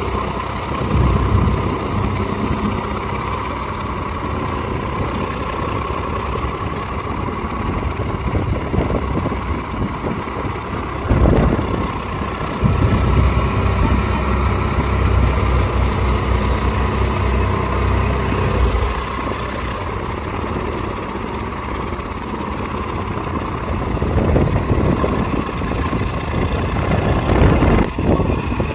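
Two farm tractors' diesel engines running hard, one towing the other out of deep mud on a chain. The engine note swells in stretches, loudest from about 11 to 19 seconds in and again near the end.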